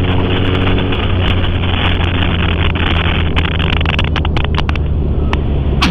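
Motorcycle engine running at a steady cruise under the rush of wind over the rider's microphone, with a quick run of sharp clicks around four seconds in.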